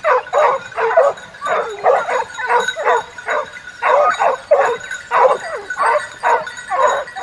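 A pack of hunting hounds baying and barking, many overlapping calls several times a second without letup.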